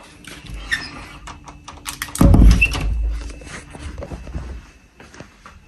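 A door being shut: one dull, heavy thud about two seconds in, with small clicks and rustling around it.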